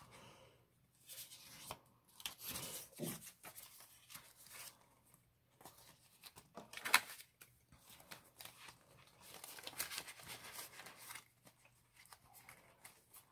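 Faint, irregular rustling of paper banknotes and crinkling of a clear plastic binder pocket as dollar bills are slid in and the pocket is pressed flat, with a few sharp ticks of handling.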